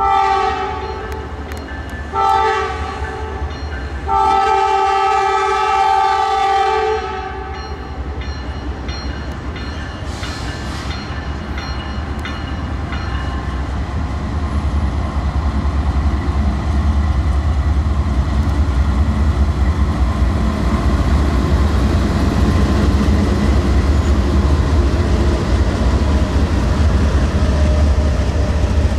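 A Norfolk Southern diesel freight locomotive's multi-note air horn sounds three blasts, long, short and long, the close of the long-long-short-long grade-crossing signal. After the horn the rumble of the approaching locomotive builds steadily louder.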